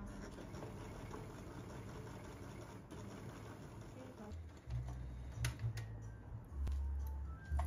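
Overlock (serger) sewing machine stitching knit fabric with a fast, steady clatter. About halfway through, background music with a low bass line comes in over it, with a few sharp clicks.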